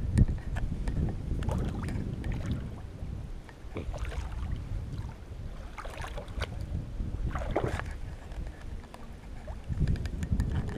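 Water sloshing and splashing around a person wading waist-deep, with irregular small splashes, and wind rumbling on the microphone.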